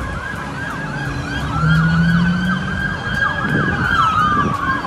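Emergency vehicle sirens. One yelps in rapid up-and-down sweeps, about three a second, while another wails in a slow rise and fall. A brief low droning tone sounds about two seconds in.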